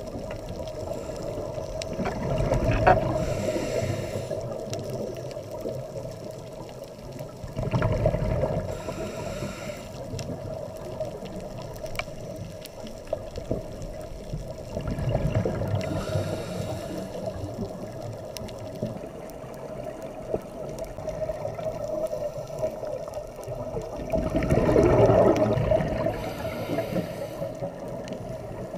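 Scuba diver's regulator breathing heard underwater: four swells of exhaled bubbles at fairly even intervals several seconds apart, the last the loudest, over a steady underwater hum.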